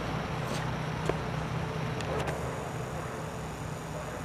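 Outdoor ambience dominated by a steady low engine-like hum, with a few short clicks about half a second to two and a half seconds in.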